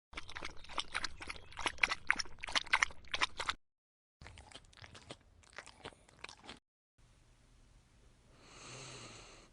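Dog eating, chewing with rapid crunches, in two separate takes, the second quieter. Near the end a single soft sound swells and fades.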